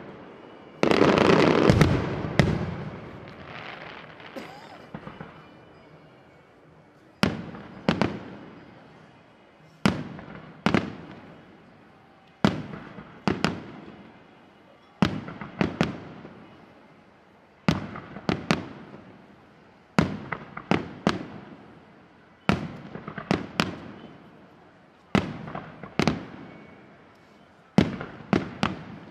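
Aerial firework shells bursting: a loud, dense volley of bangs about a second in, then single sharp bangs every second or so, some in quick pairs, each dying away in an echo.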